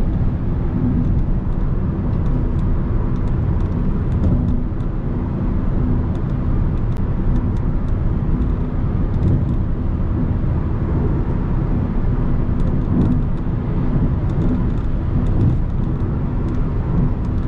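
Audi A3 cruising steadily at highway speed: a continuous even rumble of engine and road noise with a steady hum.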